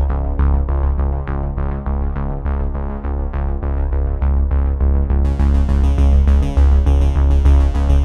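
Background electronic music with a synthesizer, a strong bass line and a steady beat; a bright high layer comes in about five seconds in.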